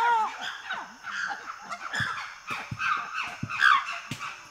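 Several wild chimpanzees calling excitedly at once, a dense stream of short overlapping barks and screams that bend in pitch, with a few dull low thumps in the second half.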